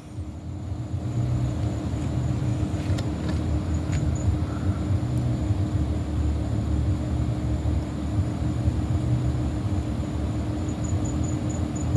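Steady low rumble with a constant hum, with no change or distinct events.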